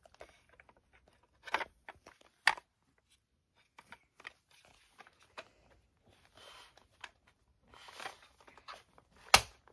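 Hard plastic parts of a toy car clicking and clattering as its removable roof is handled and fitted back on, with light rustling between the clicks. A sharp click near the end is the loudest.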